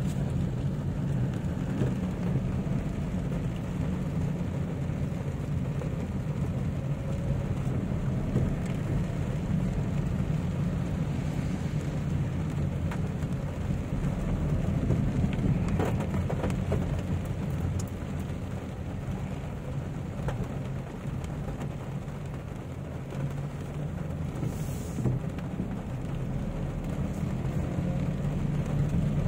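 In-cabin sound of a Toyota Wigo hatchback driving in heavy rain: a steady low engine and road rumble, with rain pattering on the roof and windshield.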